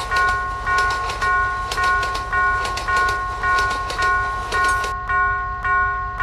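Japanese railroad crossing alarm ringing its repeated 'kan-kan' strikes, a little under two a second, while a train passes with its wheels clattering over the rail joints. The clatter stops about five seconds in and the crossing bell keeps ringing.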